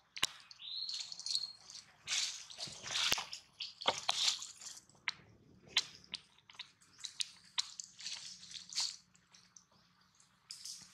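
Wet smacking and clicking mouth sounds of a baby long-tailed macaque suckling at its mother's teat, coming irregularly several times a second. A brief high, gliding squeak comes about a second in.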